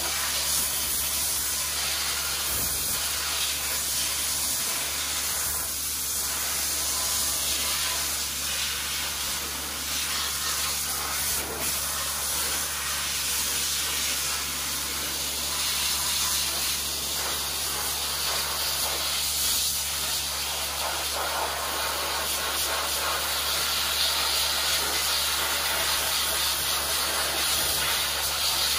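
Dry ice (CO2) blasting nozzle spraying against a vehicle's underside and chassis: a steady, unbroken hiss of compressed air and ice pellets, with a steady low hum beneath.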